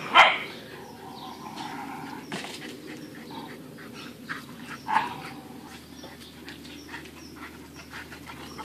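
Dogs playing: one gives a loud, short, sharp bark or yelp just after the start and another, smaller one about five seconds in.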